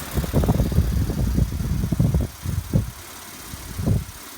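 Emerson 79648-AU 16-inch table fan running on medium speed, its airflow buffeting the microphone in irregular low rumbling gusts. The gusts are dense for the first two seconds, then come only twice more.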